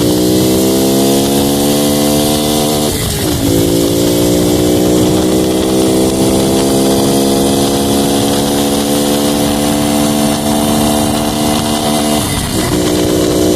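Honda Pop 110's small single-cylinder four-stroke engine under acceleration while riding, its note climbing steadily and dropping with a gear change about three seconds in and again near the end.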